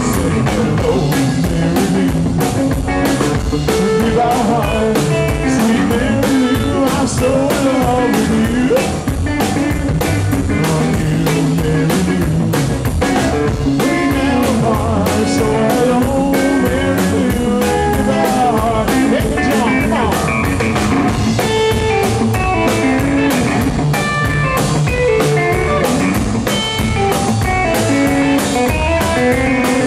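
Rockabilly trio playing live: twangy electric guitar over upright bass and a small drum kit keeping a steady beat.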